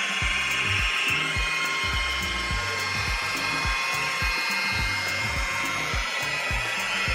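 Electric rotary polisher running steadily with a foam pad on car paint, a constant high whine from its motor as it buffs through a refining pass.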